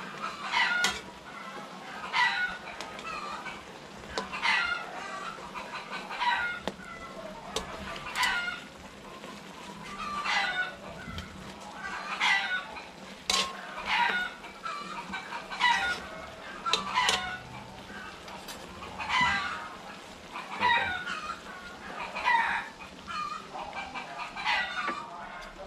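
Chickens clucking: a string of short calls, one every second or two.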